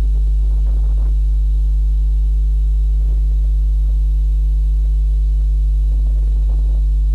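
Steady electrical mains hum, a low buzz at about 50 Hz with its overtones, from the recording chain rather than the scene; no other clear sound.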